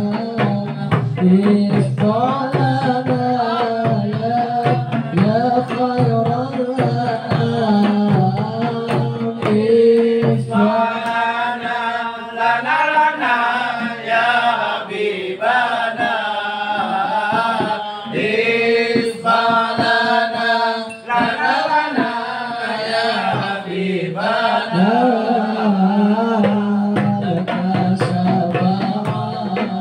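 A group of men singing Arabic devotional praise songs (sholawat) together, with hadrah frame drums (rebana) beating a steady, dense rhythm throughout. The singing swells louder and fuller in the middle.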